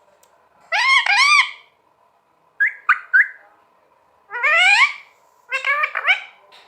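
Pet green parrot calling in four short bursts of pitched calls: a pair of arching calls about a second in, quick chirps, a long rising call, then a run of several calls near the end.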